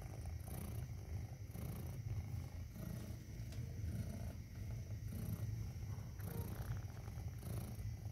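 Persian mother cat purring steadily while nursing her newborn kittens: a low rumble that swells and eases about once a second with her breathing.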